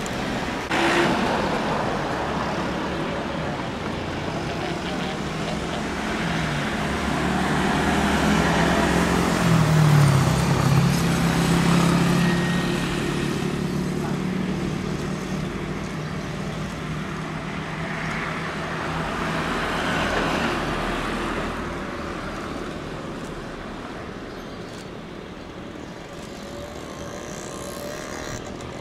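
Steady engine and traffic rumble, rising to its loudest about ten seconds in and fading toward the end.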